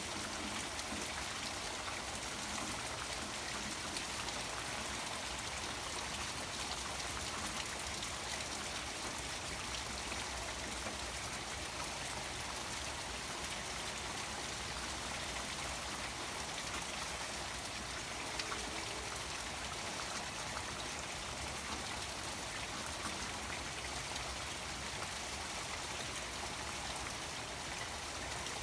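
Rain falling on a koi pond water garden over the steady rush of its waterfall: an even wash of water noise dotted with countless small drop ticks, unchanging throughout.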